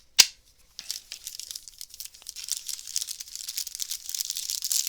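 A sharp snap about a quarter second in, then steady crinkling and rustling of a plastic booster-pack wrapper and trading cards being handled.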